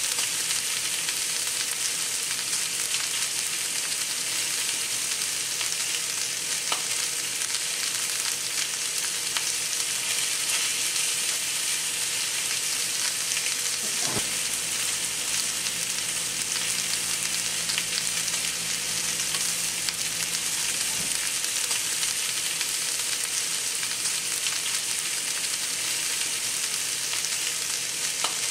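New York strip steaks and chopped garlic sizzling steadily in a hot pan: a dense, even hiss with an occasional faint pop.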